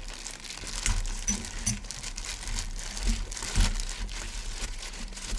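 A hand in a thin plastic disposable glove kneading and tossing young summer radish kimchi with its seasoning in a stainless steel bowl: irregular crinkling of the glove and wet squishing of the greens, with a couple of soft thumps.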